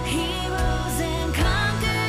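Worship music: a Christian song with sustained instrumental chords and a wavering vocal line over a steady bass.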